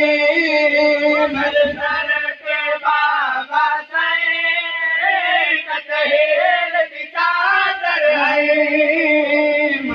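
A noha, a Shia mourning lament, sung in long, wavering held lines in a high voice, with short breaths between phrases.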